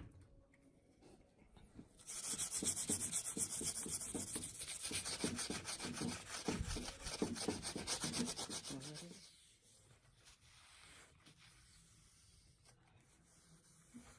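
Fast, steady back-and-forth rubbing strokes on a hard surface for about seven seconds, starting about two seconds in and stopping suddenly; the kind of hand scrubbing or sanding used to clean a grimy case.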